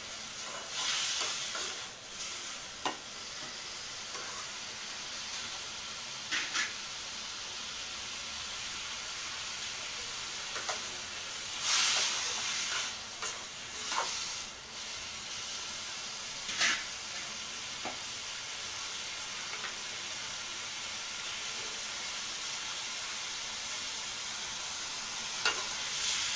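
Chopped tomatoes and onions sizzling in oil in a metal kadai, with a steady hiss. A metal spatula scrapes and clinks against the pan every few seconds as they are stirred, sautéing until the tomatoes soften and give up their water.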